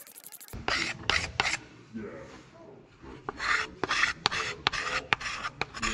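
Sandpaper rubbed by hand over the bowl of an ash wooden spoon: a few short scratchy strokes starting about half a second in, a pause, then a run of quicker strokes, about three a second, through the second half.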